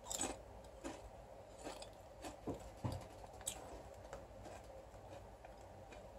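Potato chips crunching as they are chewed with the mouth closed: faint, sharp crunches, about half a dozen in the first three and a half seconds, then only a few weak ones.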